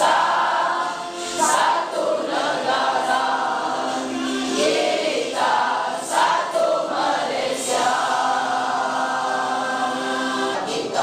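A group of teenage boys singing a song together in unison, in held, sustained phrases.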